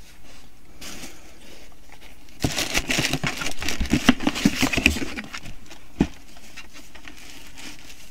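Rustling and crinkling of handled packaging for about three seconds, then a single knock about six seconds in.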